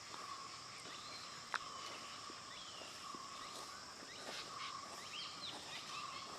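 Forest ambience: a steady high insect drone with a few short bird chirps, and one sharp snap about one and a half seconds in.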